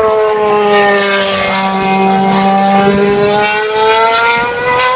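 Formula 1 car engine at high revs, its pitch easing down through the first half and climbing back up toward the end.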